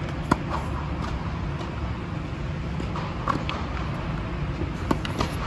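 Tennis rally on a hard court: sharp, short pops of racket strings striking the ball and the ball bouncing, the loudest just after the start, over a steady low hum.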